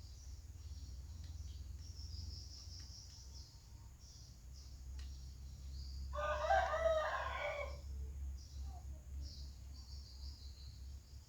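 A rooster crows once, about six seconds in, the call lasting under two seconds, over a steady high chirring of insects and a low hum.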